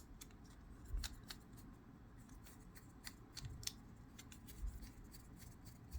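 Faint, irregular light clicks and taps from a small fixed-blade knife being handled, with a couple of soft low thumps.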